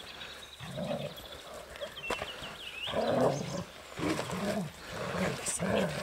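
Hovawart dog growling in play while tugging on a toy: a run of low, rough growls, each about half a second long, coming roughly once a second.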